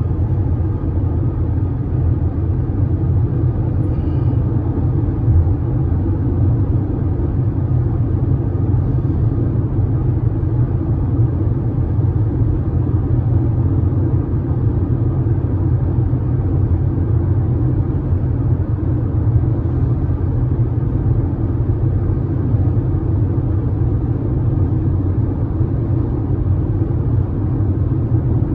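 Car driving at highway speed: a steady low rumble of road and engine noise that does not change.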